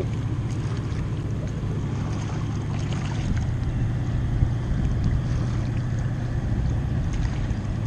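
A steady low engine drone with a rushing noise over it, holding even throughout.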